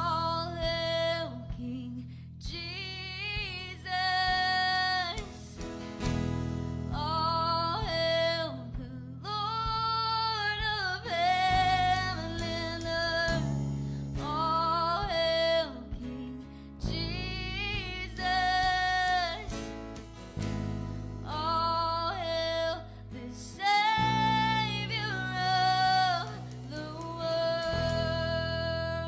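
A woman singing a worship song with a live church band of bass, guitars and drums, in phrases of held notes over a steady bass line that shifts every few seconds.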